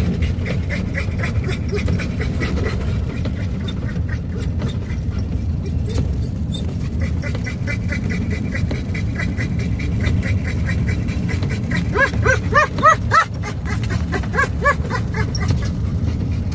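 A dog whining and yipping in a quick run of short high calls about two-thirds through, and again briefly just after, inside a moving vehicle. Under it is the vehicle's steady low road rumble with rain pattering on it.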